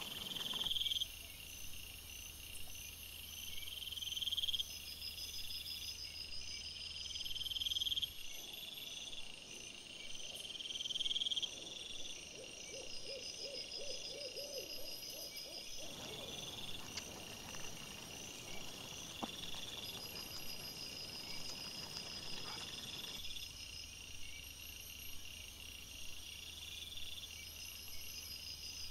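Night insects chirping steadily: a high, rising swell that repeats every second and a half or so, with faster pulsed trills above it. A short run of lower pulses comes about halfway through.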